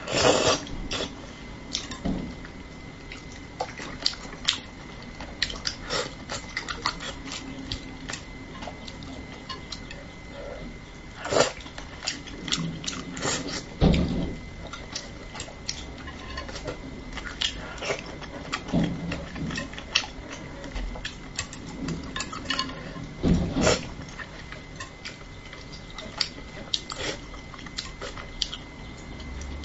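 Close-up eating sounds of spicy braised fish: wet chewing and sucking of fish flesh off chopsticks and bones, with chopsticks clicking against the dish, in many irregular small clicks and smacks.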